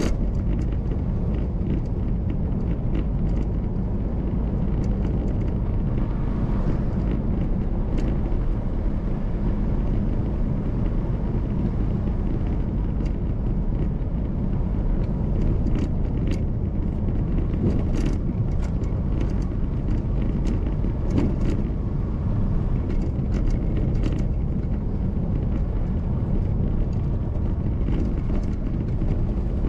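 A car driving along a road: steady low engine and tyre rumble, with scattered small clicks and rattles.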